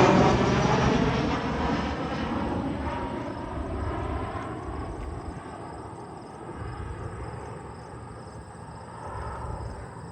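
Boeing P-8A Poseidon's twin CFM56 turbofan engines passing overhead and receding, the jet noise loud at first and fading steadily away.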